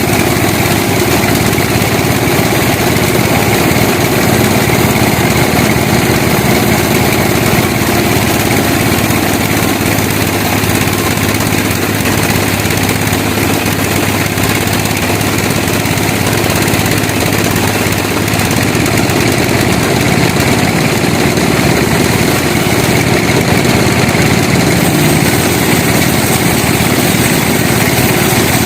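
Sawmill machinery running steadily, a loud continuous engine-driven drone. Its low hum shifts about eighteen seconds in.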